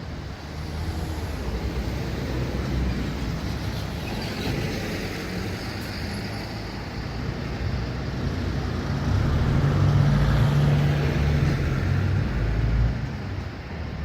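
JR Kyushu 305 series electric train passing: a rumble of wheels on rail that builds, is loudest about ten seconds in, then eases near the end.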